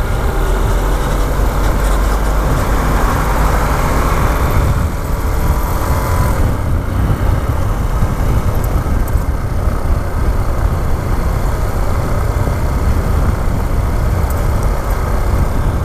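Yamaha XTZ 250 motorcycle riding through city traffic: its single-cylinder engine runs under a steady, heavy rumble of wind on the microphone, with other traffic around it.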